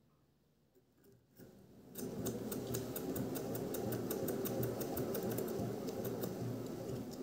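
Honda generator's alternator powered from a 12-volt supply, starting up about a second and a half in and then running steadily with a low hum and a fast stream of sharp clicks.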